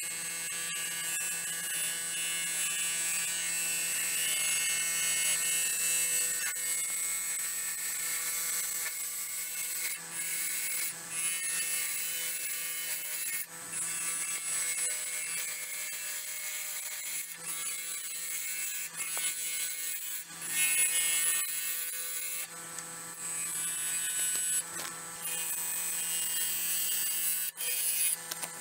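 Bowl gouge hollowing a spinning silver maple burl and epoxy resin bowl blank on a lathe: a steady hissing cut over the hum of the lathe motor, dipping briefly several times as the cut eases off.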